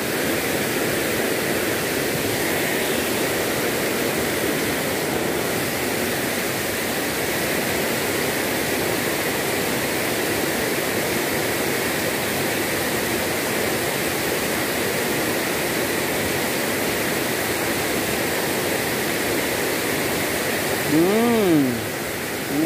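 Steady rush of a rain-swollen, muddy river pouring over a small waterfall and churning white against the rocks. A brief voice sounds once near the end.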